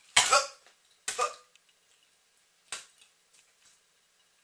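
A person coughing from chili-spiced dark chocolate catching in the back of the throat: a hard double cough right at the start, another about a second in, and a shorter one near the middle.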